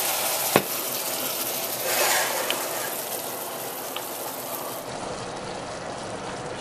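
Ground pork and chicken broth sizzling and simmering in a stainless steel saucepan, stirred with a wooden spoon, with a sharp knock about half a second in and a few light clicks later.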